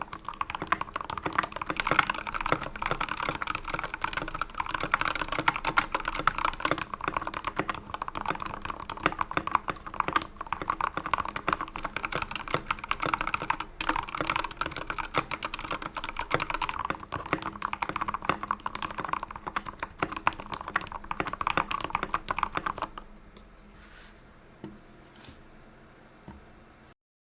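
Fast, continuous typing on a GK64XS mechanical keyboard with Tealios V2 linear switches and XDA-profile PBT keycaps, a dense run of keystroke clacks. The typing stops about 23 seconds in, and a few faint clicks follow.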